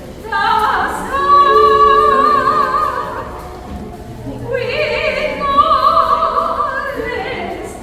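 A singing voice in an operatic style, holding long high notes with strong, wide vibrato. There is a short dip about four seconds in before the next phrase.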